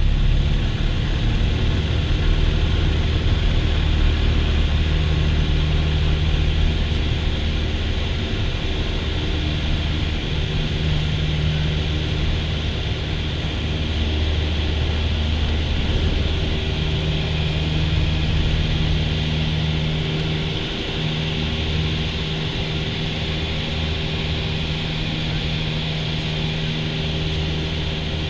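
Cessna 172's piston engine and propeller at full takeoff power during the takeoff roll and climb-out, heard inside the cabin. A loud, steady drone that swells right at the start and then holds.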